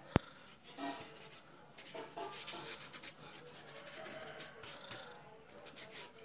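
A sharp click just after the start, then a painting knife scraping and spreading thick paint over a board in a series of irregular rubbing strokes.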